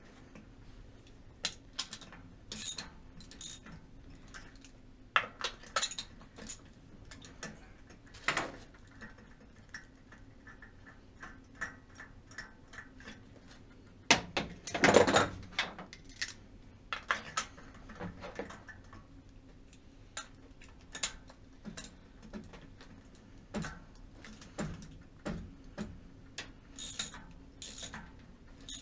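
Metal hand tools clinking and knocking under a car's hood while spark plugs are changed: scattered light clicks and taps, with a louder clatter of handling about halfway through.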